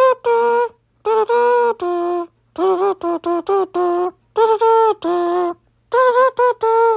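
A single high voice humming a slow wordless tune in short held notes. The notes come in phrases, with brief pauses between them.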